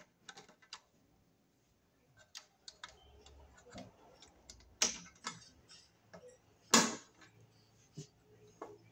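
Scattered light clicks and taps of a screwdriver and copper ground wire against the terminals of a metal cartridge-fuse disconnect box as the wire is pushed through the ground terminal, with two sharper clicks about five and seven seconds in.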